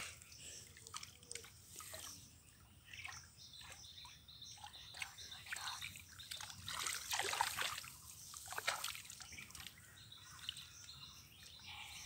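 Hands sloshing and splashing in shallow muddy water while groping for fish, the splashing loudest and busiest from a little past the middle for a couple of seconds.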